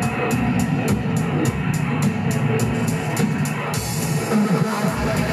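Rock music with drums and electric guitar, a hi-hat ticking about three or four times a second that gives way to a steady cymbal wash a little over halfway through.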